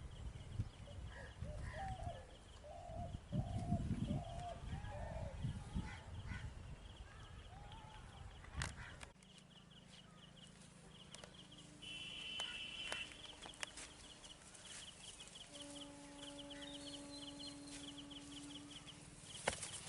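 Rural outdoor ambience. For the first half, wind buffets the microphone and a few short bird calls sound. Throughout, a high insect chirp pulses steadily; near the end a steady humming tone holds for about three seconds.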